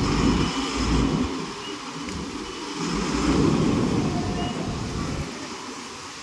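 Road traffic passing: motor vehicle engines and tyres in a steady rumble, swelling louder within the first second and again about three and a half seconds in, then easing off near the end.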